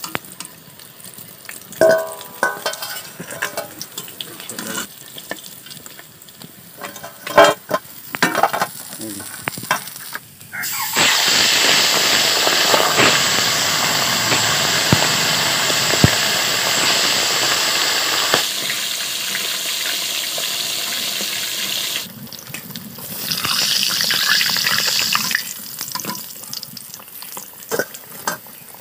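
Fish pieces frying in hot oil in a metal kadai: first scattered clinks and scrapes of a slotted spoon against the pan, then about ten seconds in a sudden loud sizzle as fresh pieces go into the oil, holding for several seconds before easing off. A second burst of sizzling follows a little later.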